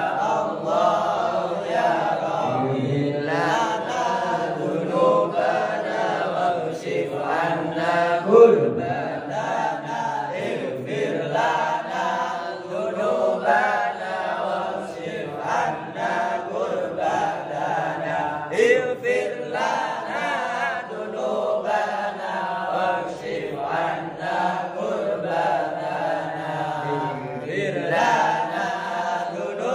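A man chanting Quran recitation in Arabic, in long melodic phrases with brief pauses between them.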